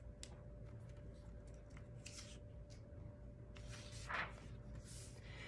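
A paper page of a picture book being turned by hand: a brief rustling swish about four seconds in, with a few faint taps and rustles before it.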